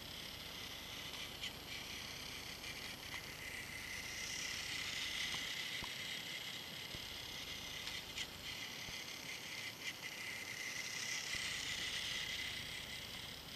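Battery-powered motorized toy train running on its track, a steady high whir of its small motor and plastic gears with a few light clicks. It grows louder twice, as if coming close to the microphone.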